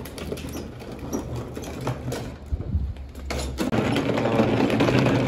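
Plastic wheels of a child's ride-on toy tractor rattling and grinding over rough asphalt, growing louder about two-thirds of the way in.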